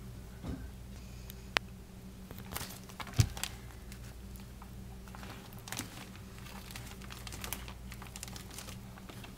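Raw bacon strips being handled and laid onto a stovetop griddle tray: soft crinkling and scattered light clicks, with a sharp click about one and a half seconds in and a louder knock about three seconds in, over a steady low hum.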